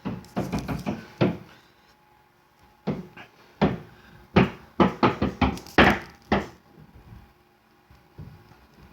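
Repeated banging knocks coming in two irregular runs: about five quick ones in the first second and a half, then a longer run of about a dozen from about three seconds in until six and a half seconds.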